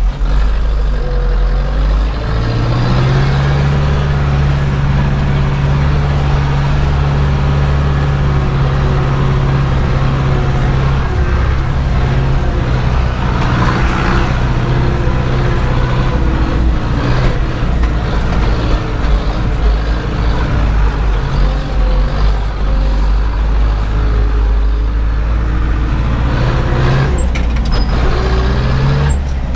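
Zetor 7011 tractor's four-cylinder diesel engine running steadily while driving. Its pitch rises about two seconds in and eases down a little past halfway.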